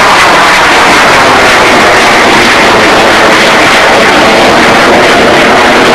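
Jet noise from an RAF F-4 Phantom's twin Rolls-Royce Spey turbofans, loud and steady as the fighter flies its display overhead.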